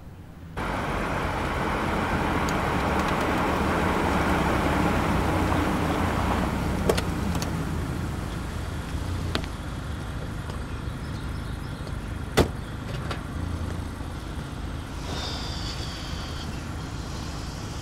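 A car running steadily on the road, louder in the first seconds and easing off after about seven seconds, with a single sharp knock about twelve seconds in.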